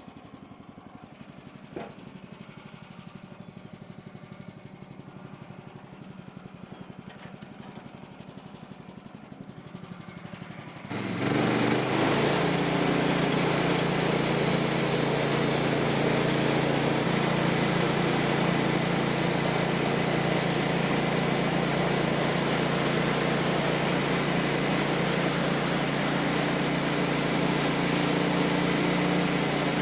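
Small engine on a Woodland Mills portable bandsaw sawmill idling with a steady, even pulse. About eleven seconds in it is throttled up and then runs loud and steady at full speed to drive the band blade.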